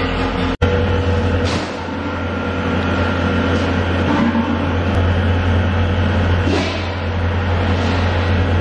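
Steady drone of factory machinery: a low hum with a noisy hiss over it, cut off for an instant just after the start, with a couple of faint airy swooshes later on.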